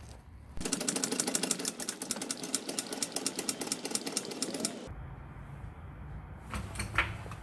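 Floor jack being pumped to lift the vehicle, a fast, even clicking rattle for about four seconds that stops abruptly, followed by a single sharp click.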